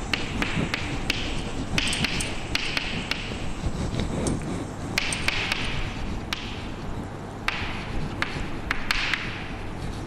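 Chalk writing on a chalkboard: many sharp, irregular taps as the chalk strikes the board, with short scratchy scrapes of the strokes between them.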